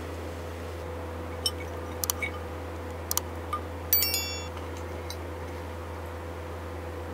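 Plastic serving utensils clicking against a plate as fried duck is set down: a few light clicks, then a ringing clink about four seconds in. A steady low hum runs underneath.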